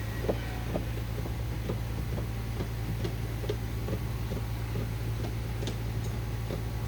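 A machine running with a steady low hum, with irregular light ticks and clicks over it, about two or three a second.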